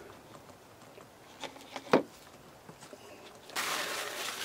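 A few small plastic clicks and taps, the sharpest about two seconds in, as a syringe is handled in a plastic epoxy mixing cup; then, about three and a half seconds in, paper starts rustling as it is moved about.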